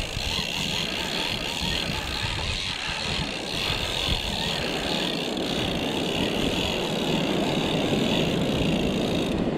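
Conventional fishing reel being cranked steadily, its gears whirring as it winds in line under the load of a hooked fish. Wind buffets the microphone.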